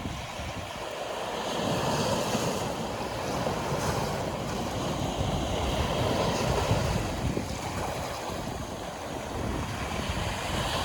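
Sea surf washing onto the shore in a steady wash that swells and eases, with wind buffeting the microphone.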